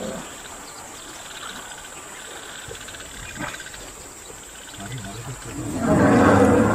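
Faint insect trilling over quiet bush ambience. About five and a half seconds in, loud, rough animal calls swell up and carry on as a lion attacks African buffalo.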